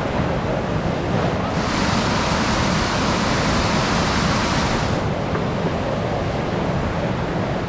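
Whitewater rapid rushing and churning in a steady loud roar of water, with a brighter hiss for a few seconds in the middle.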